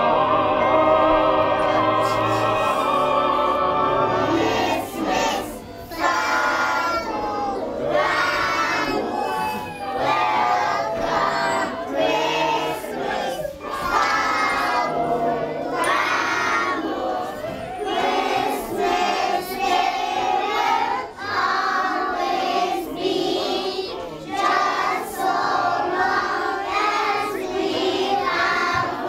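A group of women and young children singing a song together over a recorded backing track.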